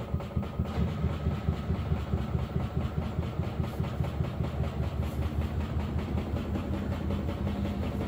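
Samsung WW90T684DLHS7 front-loading washing machine drum spinning, with a loud rapid rhythmic thumping several times a second that evens into a steadier hum near the end. The noise comes from the drum pressing on and knocking against the door and front housing, a fault the owner says a new door seal, new shock absorbers and added dampers have not cured.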